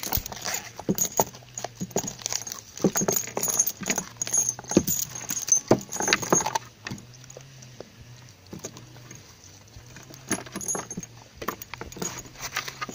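A dog chewing and tearing an ear of sweetcorn in its husk, a fast irregular run of crunches, with its metal chain and collar clinking on the wooden boards. The crunching and clinking are busiest in the first half and grow sparser after about seven seconds.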